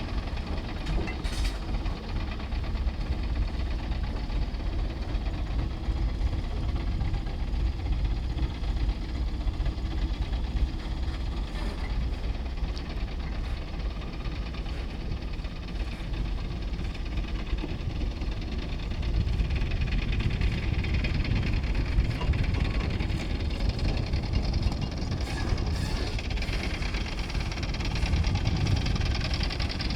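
Heavy diesel construction machinery running steadily with a low rumble, getting louder and fuller about two-thirds of the way through.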